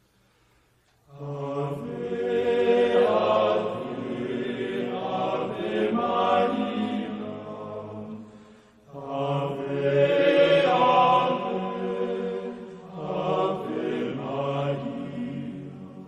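Slow chanted singing in long held notes: two phrases starting about a second in, with a short pause just past halfway.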